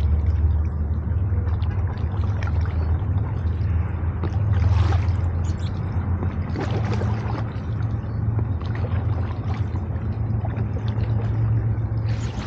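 Paddles dipping and water sloshing around a raft on floodwater, with a few splashy surges, over a steady low rumble that is the loudest thing throughout.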